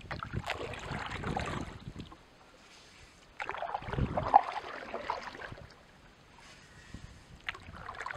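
Water splashing and sloshing around a small boat on a river, in three irregular bouts a few seconds apart, with wind on the microphone.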